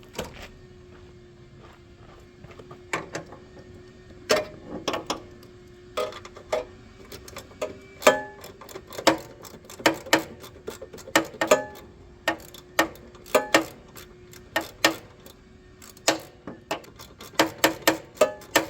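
Hand tools and metal parts working on a snowblower's housing: irregular sharp metallic clicks and knocks, some in quick runs like a socket ratchet and some ringing briefly, over a faint steady hum.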